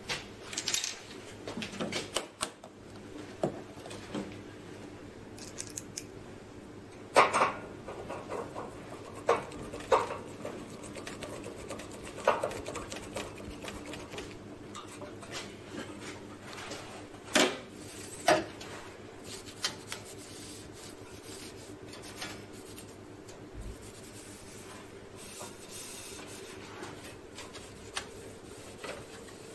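Scattered clicks, knocks and rubbing of a screwdriver and hands working on the metal covers and parts of a Xerox wide-format printer, over a steady low hum. A few sharper knocks stand out, the loudest about seven seconds in and two more just past the middle.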